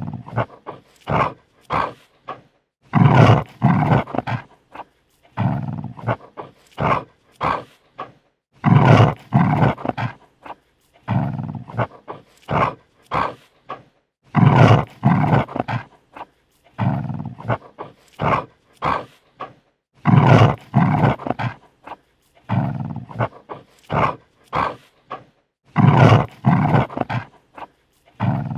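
Dog snarling defensively: a run of short, harsh snarls a few per second, with longer, louder snarls among them. The sequence repeats about every six seconds.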